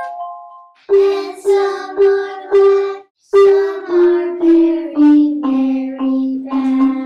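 Short passage of background music. A ringing chord fades out, then four repeated notes play, then a run of notes steps down in pitch.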